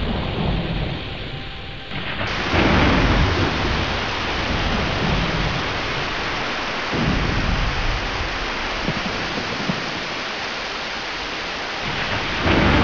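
Heavy rain pouring steadily, with low rolls of thunder swelling and fading several times.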